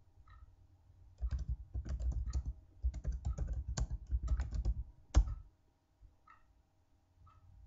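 Typing on a computer keyboard: a quick run of keystrokes lasting about four seconds, ending in one louder stroke on the Enter key.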